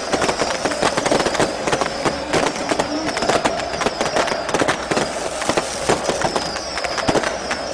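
Firecrackers going off in many rapid, irregular bangs over a steady dense noise from a stand full of burning flares. A high whistling tone dips about once a second throughout.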